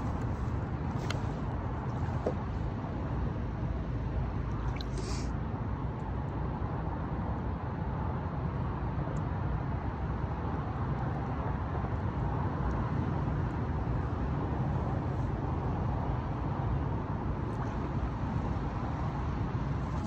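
Steady low rumbling background noise, with a brief faint rustle about five seconds in.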